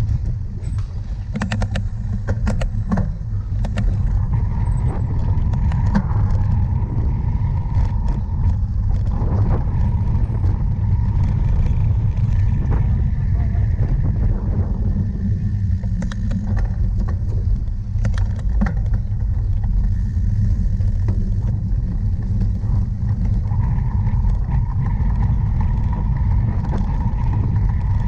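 Wind buffeting the microphone of a camera riding on a cyclocross bike, a steady low rumble, with scattered clicks and rattles from the bike over rough ground.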